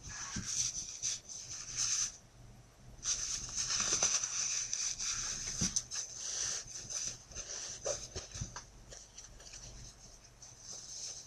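Ring sling fabric rustling in irregular swishes as it is pulled and adjusted around the carried child, with a few soft knocks from handling.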